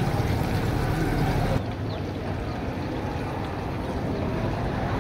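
Hot oil sizzling and bubbling in a large karahi as handfuls of shredded-potato pakora batter are dropped in to deep-fry, over a steady low rumble. About a second and a half in the sound changes abruptly, losing much of its hiss.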